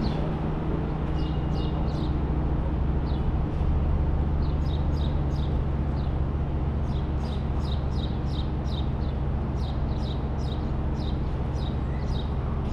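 Steady low hum of a car and its road noise, with birds chirping over it: short, high, falling chirps, sparse at first and then several a second through the second half.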